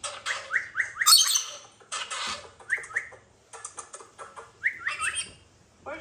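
Rainbow lorikeet calls: groups of short rising chirps mixed with harsh, screechy squawks, the loudest a little over a second in.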